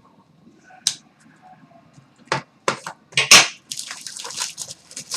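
Trading cards and their packaging being handled on a table: several sharp clicks and taps, then a stretch of rustling from about three and a half seconds in.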